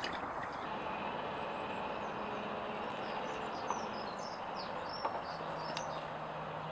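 Steady outdoor background noise with faint bird chirps in the middle and two light clicks.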